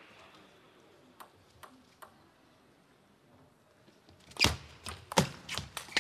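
Table tennis serve and rally: after a few faint ticks, the sharp clicks of the ball alternating off the rubber bats and the table begin about four and a half seconds in, coming two to three a second.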